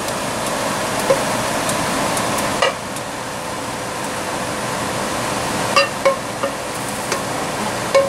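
Metal cooking utensil clinking and scraping against a frying pan a handful of times as cooked meat is scraped out into a bowl, over a steady kitchen hiss.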